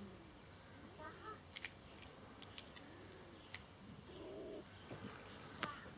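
A handful of sharp, short clicks at irregular intervals over a faint outdoor background, with a bird cooing in low repeated notes now and then.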